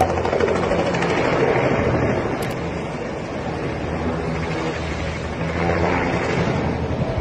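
Bell 206 helicopter's turbine and rotor noise heard loud and steady from inside the cabin.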